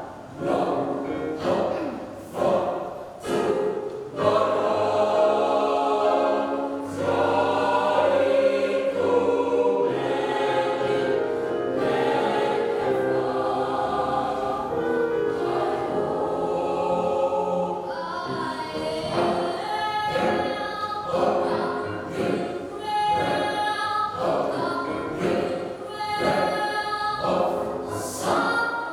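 Youth choir singing in several parts. Long held chords fill the middle; sharp percussive beats punctuate the singing in the first few seconds and again from about two-thirds of the way through.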